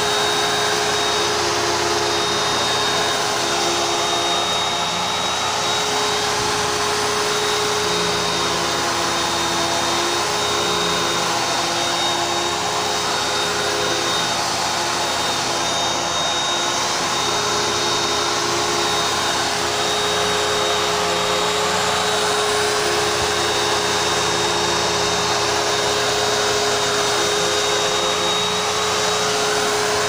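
12-amp Hoover High Performance vacuum cleaner running steadily while vacuuming carpet: a constant rush of air with a steady motor whine, swelling and easing slightly as it is pushed back and forth.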